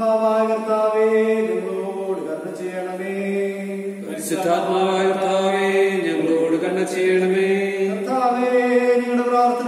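Slow liturgical chant: a sung line held on long steady notes that step to a new pitch every second or two.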